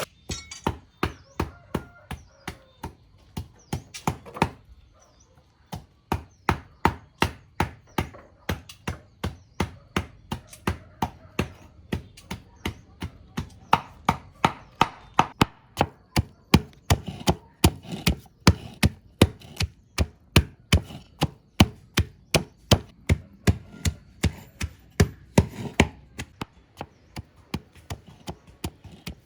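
Steady chopping with a blade, about two strokes a second, pausing briefly about four seconds in and then going on at the same pace.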